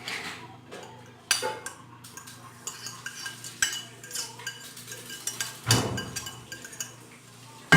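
A kitchen utensil clinking and scraping against a bowl of ground beef and mashed potato as ingredients are added and worked in, with a few separate sharp clinks and the loudest one at the very end.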